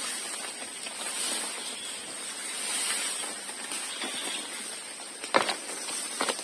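Plastic tarp rustling and crinkling as it is pulled and shaken over a pole frame, with a couple of sharp snaps near the end.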